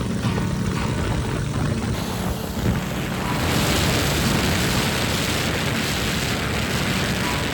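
Motorcycle engine running at road speed, with loud wind noise on the microphone taking over from about three seconds in.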